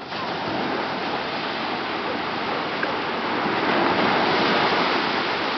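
Small waves breaking and surf washing up the beach: a steady rush that swells a little about four seconds in.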